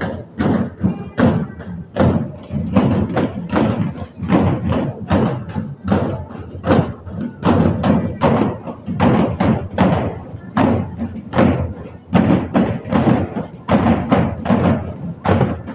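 Several large steel-shelled dhol drums beaten together in a fast, steady procession rhythm, about three or four strokes a second.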